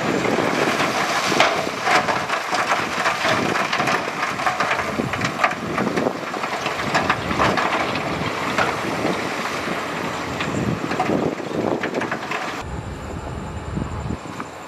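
Loose rock clattering and crunching as heavy earthmoving equipment moves it, a dense run of sharp cracks over machine noise. Near the end it switches abruptly to a lower, quieter engine rumble.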